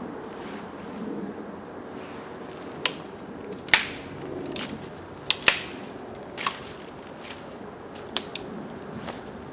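Dry sticks and brush snapping: about eight sharp, short cracks at irregular intervals, the loudest near the middle.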